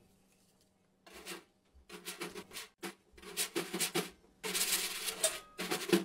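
Snare drum, partly covered with a cloth, played with sticks in short bursts of taps, rubs and scrapes that stand in for a cartoon scene's sound effects, heard without the cartoon's own audio. The bursts start about a second in and come in several short runs.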